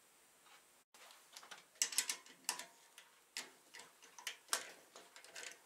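Irregular light clicks and taps of small objects being handled and set down on a workbench, after a sudden cut about a second in.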